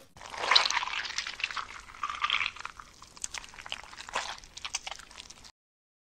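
Slime being squished by hand: dense wet clicking and squelching that cuts off abruptly about five and a half seconds in.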